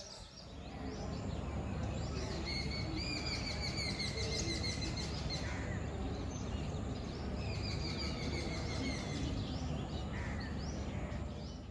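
Birds calling over a steady low rumble. Two runs of long, slightly falling whistled notes stand out, starting about two seconds in and again about seven seconds in.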